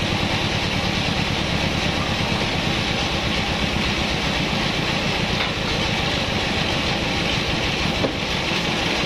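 Vertical band sawmill running steadily, a low, rapidly pulsing drone with a steady hiss over it. A single short knock near the end.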